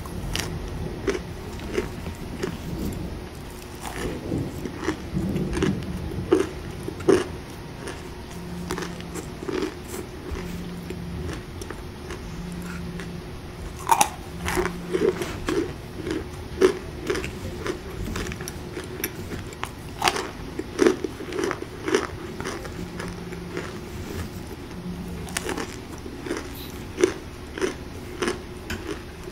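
Close-up biting and chewing of compressed cornstarch chunks: irregular sharp, dry crunches, a few louder bites among many softer ones, over a steady hiss of rain.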